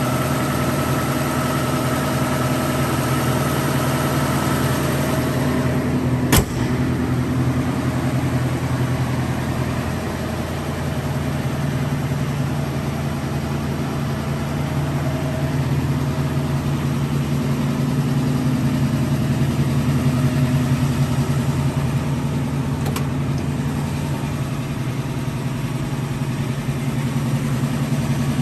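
A rebuilt 289 V8 in a 1965 Ford Mustang, running steadily at idle, with one sharp click about six seconds in.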